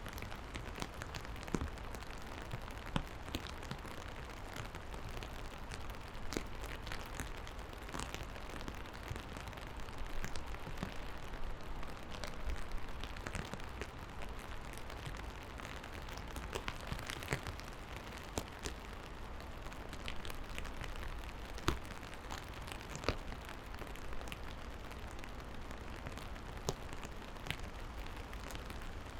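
Steady rain falling, an even hiss with many scattered sharp drop ticks striking close by.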